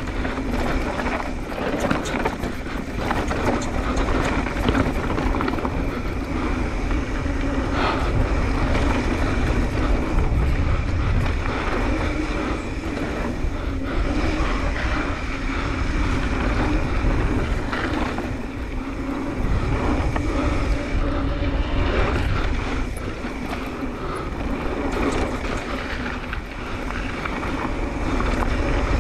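Wind buffeting a chin-mounted action camera while a Specialized Turbo Levo SL electric mountain bike rides a dry dirt trail at speed, its tyres rumbling over the ground. Frequent small knocks and rattles come from the bike over bumps, with a faint steady hum underneath.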